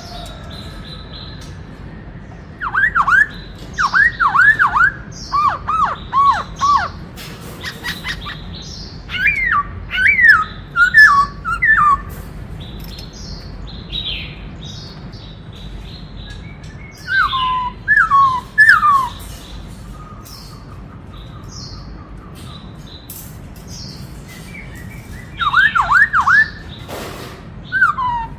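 Black-throated laughingthrush singing: four bursts of loud, clear whistled notes, each note sliding down in pitch, with pauses of a few seconds between the bursts.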